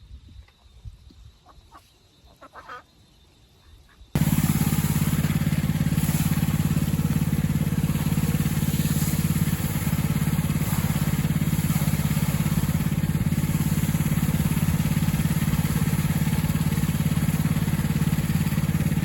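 A few seconds of near quiet with faint scattered sounds, then a small engine running steadily, cutting in suddenly about four seconds in.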